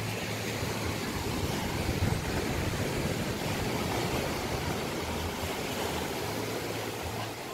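Wind buffeting the phone's microphone in uneven low rumbles, over a steady hiss of surf breaking on a sandy beach.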